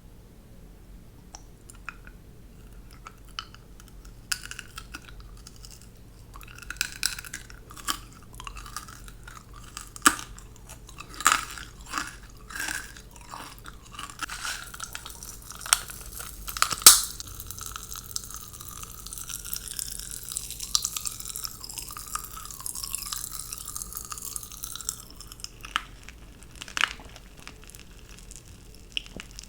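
Close-miked eating of candy: crunching, chewing and wet mouth clicks, with sharp cracks here and there, the loudest about seventeen seconds in. It starts faint and grows busy after about four seconds.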